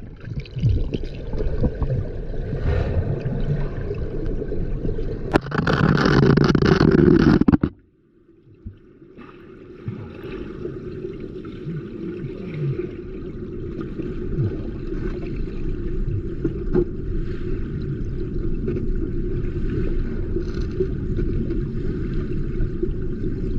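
Stream water rushing and gurgling close to the microphone. It swells loudest, then cuts off suddenly about eight seconds in and builds back gradually into a steady noise.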